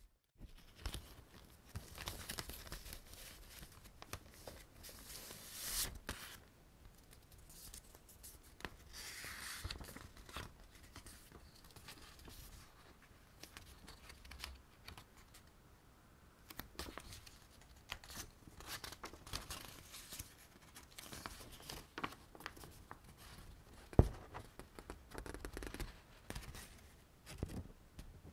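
Clear plastic packaging bag crinkling and rustling under the hands, with paper leaflets and an instruction booklet being handled and opened. About 24 seconds in there is a single sharp knock, the loudest sound.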